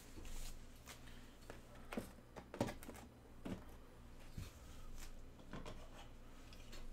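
Sealed trading card boxes being handled and restacked on a table: a handful of short knocks and rustles, the loudest about two and a half seconds in.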